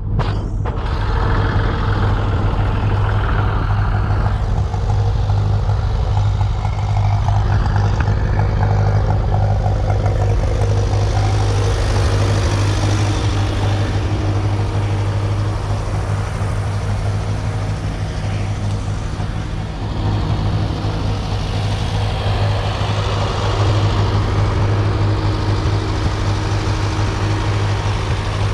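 Tractor engine running steadily with a deep, even hum.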